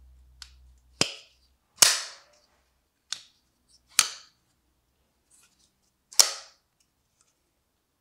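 Blade of a Giant Mouse Jagt folding knife snapping shut and open in the hand, five sharp clicks spaced unevenly over about five seconds.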